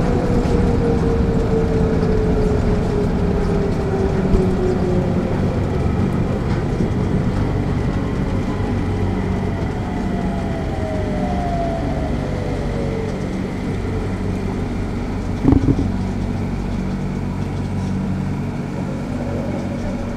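Mitsubishi Crystal Mover rubber-tyred people mover running on its concrete guideway, heard from inside the car: a steady tyre rumble and low hum. The IGBT-VVVF inverter's whine falls in pitch over the first few seconds and again around ten to thirteen seconds in. A single short knock comes about fifteen seconds in.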